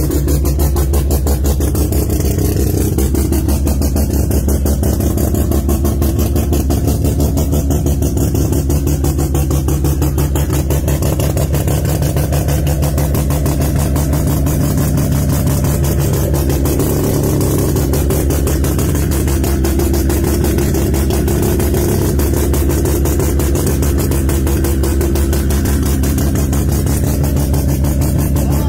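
Rotary engine of a drag car idling steadily, a loud, fast, even choppy pulse.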